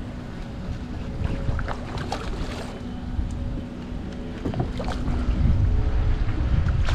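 Wind rumbling on the microphone over a faint steady hum, with a few sudden splashes from a hooked fish thrashing at the water's surface beside the boat. It grows louder near the end.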